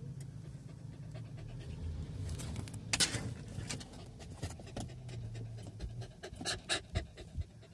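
An Isuzu MU-X's diesel engine running low and steady as the SUV works through slippery mud. Short breathy puffs sound close to the microphone, the strongest about three seconds in and a cluster near the end.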